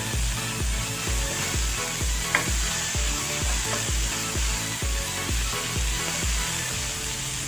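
Sliced onion, tomato and spring onion sizzling in oil in a non-stick frying pan as a plastic spatula stirs them, with one sharp tap of the spatula about two seconds in. Background music with a steady deep beat runs underneath.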